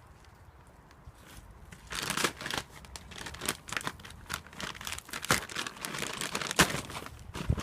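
Irregular rustling, scraping and crunching of hands-on work concreting in a fence post, starting about two seconds in, with one sharp knock a little before the end.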